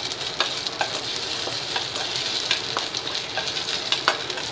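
Mustard seeds, urad dal and a dried red chili sizzling in hot groundnut oil in a stainless steel kadai, a tempering, with a spatula stirring in the pan. A steady hiss is broken by scattered sharp clicks, the loudest near the end.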